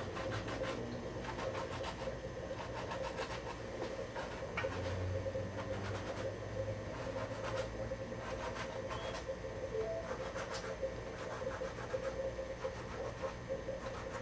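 Light scratching and rubbing as hands work a hairpiece against the hair of a mannequin head, many small scrapes and clicks over a steady hum.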